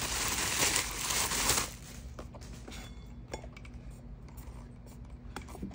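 Thin plastic wrapping crinkling as it is handled for about a second and a half, then a few light clicks and taps from a small LED light and its foam carry case being handled.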